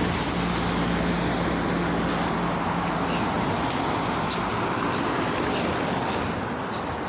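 City bus driving past close by, its engine hum holding one steady tone for the first few seconds, over the hiss of road traffic on a slushy street.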